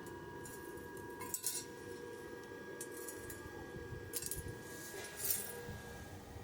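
A handful of brief light clinks and rattles of small hard objects, the loudest about a second and a half in and again around five seconds, over a faint steady hum.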